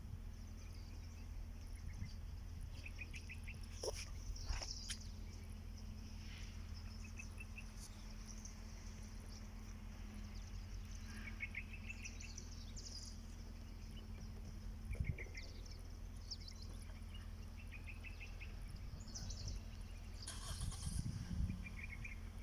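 Small birds chirping in short, quick trills every second or two over a steady low hum.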